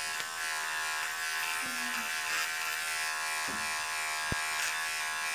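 Electric shaving razor buzzing steadily as it is run over a knitted sock to shave off loose threads and fuzz, with one short knock about four seconds in.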